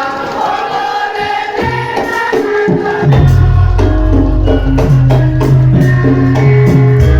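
Live music accompanying a Lengger dance: sustained held notes, then about three seconds in a heavy bass line and a steady percussion beat come in and the music gets louder.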